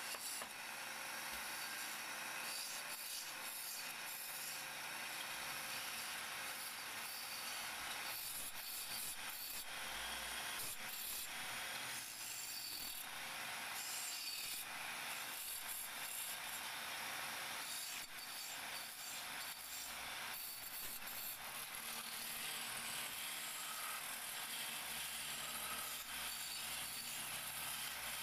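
Hand-held turning chisel cutting into a wooden spindle spinning on a lathe: a steady scraping hiss of wood being shaved, louder in short passes as the tool bites.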